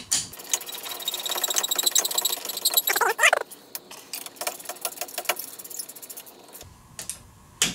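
Ratchet wrench clicking quickly as the brake caliper bolts are tightened, with a short rising squeak about three seconds in. The clicking stops near the end, followed by a couple of light metal clinks.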